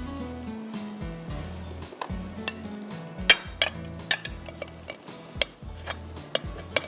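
Background music with a stepping bass line, over clinks and scrapes of a glass bowl against a serving platter as sauced fried chicken is tipped out and scraped onto it. The sharpest clink comes a little over three seconds in.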